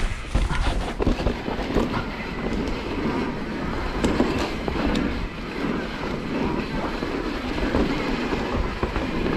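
Mountain bike rolling down a dirt and rock trail: tyres crunching over the ground while the frame and chain rattle and knock over the bumps.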